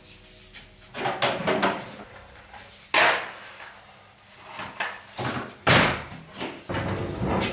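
Plastic clacks and knocks from handling a shop dust extractor's hose, wand and the case on its top: a string of separate bumps and scrapes, the loudest about three and six seconds in.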